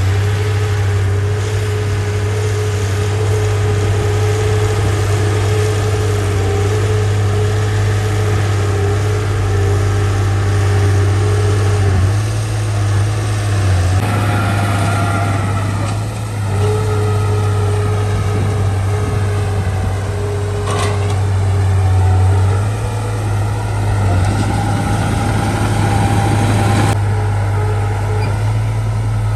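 Heavy earthmoving machine's diesel engine running steadily with a deep hum, its note shifting a few times through the stretch.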